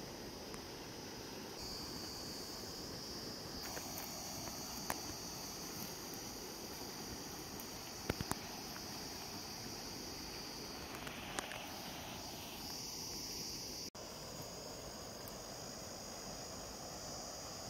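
Water rushing steadily over a small canal weir, with a steady high-pitched drone of crickets over it. A few sharp clicks stand out, one about five seconds in, two close together about eight seconds in and one about eleven seconds in.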